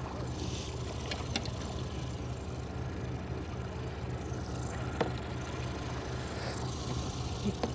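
A boat motor idling, a steady low hum with a couple of faint clicks about a second and a half in and near the middle.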